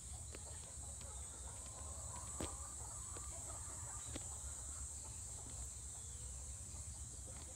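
Steady high-pitched insect chorus with a low rumble beneath it and a few faint clicks, the loudest about two and a half seconds in.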